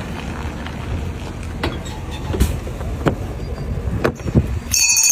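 Steady low rumbling background noise with several sharp knocks scattered through it, broken off near the end by high ringing, bell-like tones.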